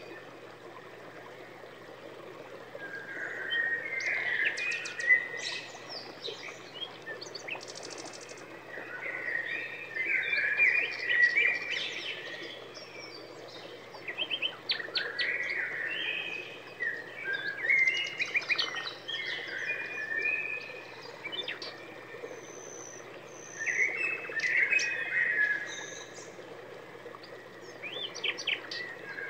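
Small songbirds chirping and twittering in short bursts of song every few seconds, with quieter gaps between.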